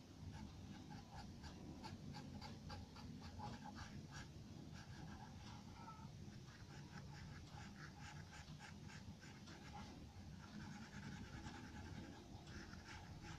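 Charcoal pencil scratching on drawing paper in short, quick shading strokes, several a second, faint over a low steady hum.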